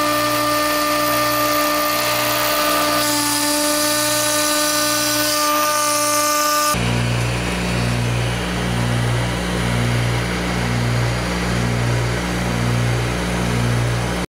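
A Stepcraft HF500 spindle runs with a 1/8-inch O-flute end mill cutting half-inch cast acrylic, giving a steady high whine with several held tones that shift slightly about three seconds in. About seven seconds in the whine cuts off abruptly, and a low pulsing rhythm of about one beat a second carries on underneath.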